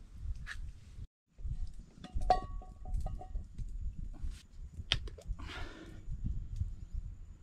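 Scattered clicks and rustles of handling and bare feet on dry leaf litter over a low rumble, with a brief dropout about a second in.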